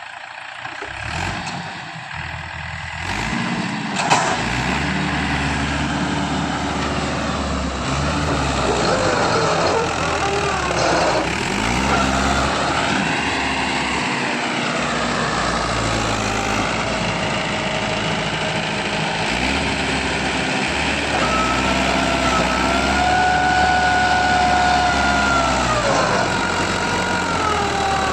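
Tractor diesel engine running hard, its pitch rising and falling as it revs up and down.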